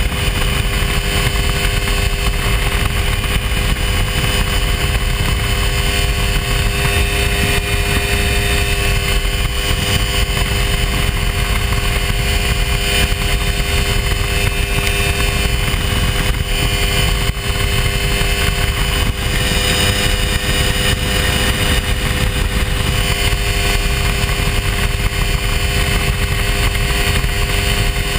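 Hy-Tek Hurricane ultralight airplane's engine running steadily in flight, a constant drone over a heavy low rumble.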